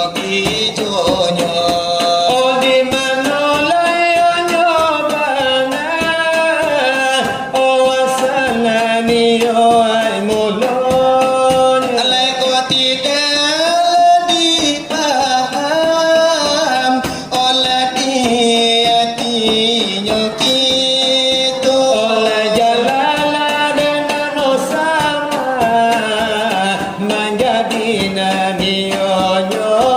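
Selawat dulang: a long, drawn-out sung devotional line that glides up and down, accompanied by a steady rhythm of hands beating a metal tray (dulang).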